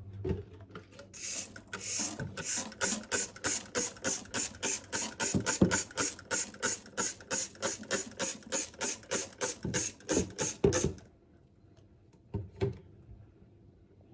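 A fast, even run of scratchy strokes, about three or four a second, lasting about ten seconds and stopping abruptly, then one more stroke near the end.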